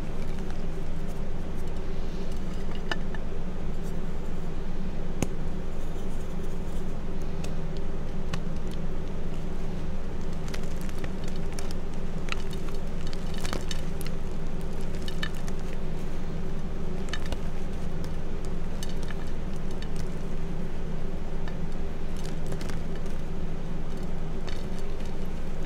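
Hands squeezing and crumbling powdery reformed gym chalk chunks, giving scattered small crunches and crackles. A steady low background hum runs underneath and is the loudest part.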